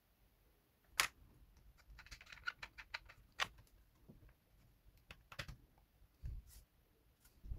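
Faint handling clicks and taps from a camera and its 3D-printed plastic LED light being worked by hand: a sharp click about a second in, a quick run of small clicks around two to three seconds, then a few more clicks and a dull knock in the second half.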